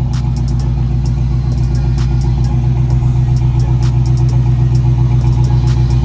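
1987 Chevrolet Monte Carlo SS V8 engine running steadily, slowly growing louder, with scattered light clicks.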